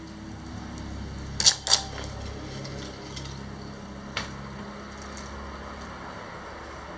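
Two sharp clicks about a quarter second apart, then a fainter single click a few seconds later, over a steady low hum.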